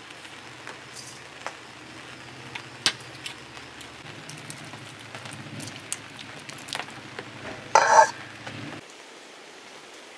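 Light clinks and taps of a spoon and small bowls while chicken is marinated in a steel bowl, with a louder clatter about eight seconds in, over a steady low hum that stops abruptly near the end.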